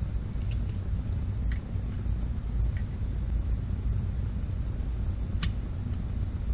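A steady low rumble, with a few light clicks of small parts being handled, the sharpest about five seconds in.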